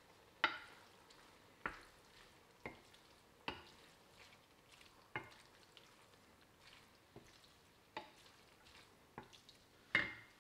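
A wooden spoon stirring spaghetti in a stainless-steel frying pan, with faint, irregular light knocks of the spoon against the pan about once a second.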